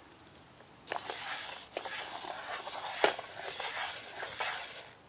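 Dry oat groats rustling and scraping in a metal camp pan as a wooden spoon stirs them while they toast, starting about a second in, with a few light clicks.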